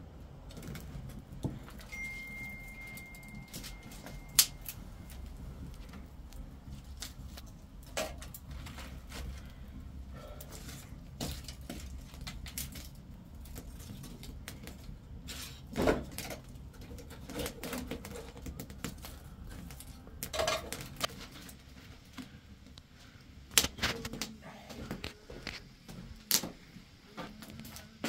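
Wood fire crackling in a clay hearth, with scattered sharp clicks and pops and a few louder knocks as sticks are fed in and shifted. A thin, steady high whistle sounds briefly a couple of seconds in.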